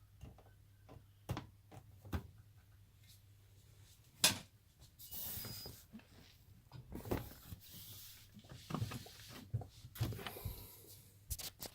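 Scattered clicks and knocks with bits of rustling from hands handling the washer-dryer's mains plug and its wiring; the sharpest knock comes about four seconds in.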